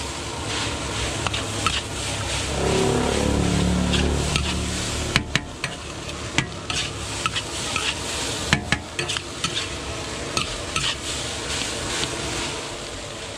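Metal spatula scraping and clacking against a large wok as fried rice is stirred and tossed, over a steady sizzle. About two and a half seconds in, a louder low drone swells and drops in pitch for a couple of seconds, then fades.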